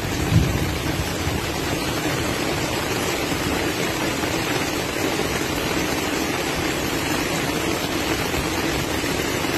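Heavy rain falling on a flooded street: a steady, even rushing hiss, with a low thump about half a second in.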